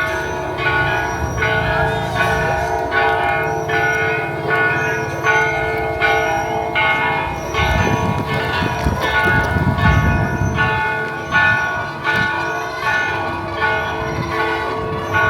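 Bells rung in a fast, even peal of about two strokes a second, each stroke ringing on over the next.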